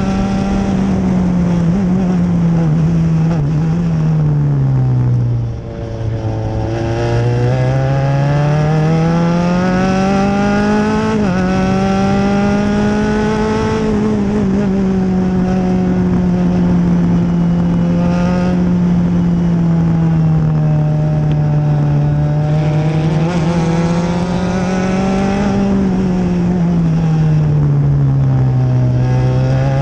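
Open-wheel formula race car's engine heard from the cockpit at racing speed, its pitch falling twice as the car slows for corners and rising again as it accelerates out, with a sudden step in pitch about eleven seconds in.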